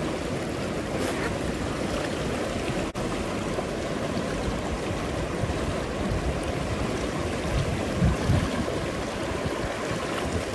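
Steady rush of river current flowing over stones.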